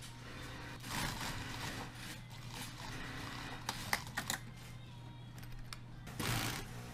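Industrial lockstitch sewing machine stitching in short runs over the steady hum of its motor, with louder spells about a second in and again near the end, and a few sharp clicks around the middle.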